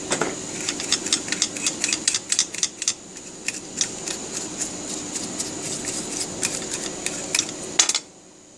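Stiff paintbrush bristles scrubbing over a burnt power-supply circuit board: a quick run of scratchy strokes, thickest in the first three seconds and sparser after, over a steady background hum. The sound drops away abruptly about eight seconds in.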